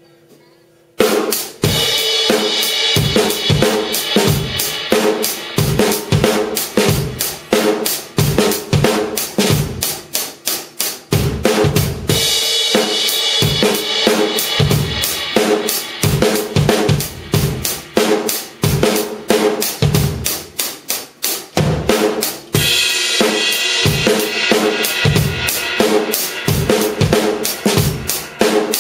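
C&C Custom acoustic drum kit played in a steady groove, kick and snare strikes with TRX cymbals, starting about a second in after a brief quiet. The cymbals ring out in a wash twice, from about twelve to sixteen seconds in and again from about twenty-two seconds in to the end.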